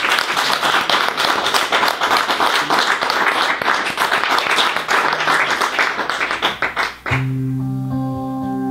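Audience applause for about seven seconds, then an electric guitar starts ringing out held notes.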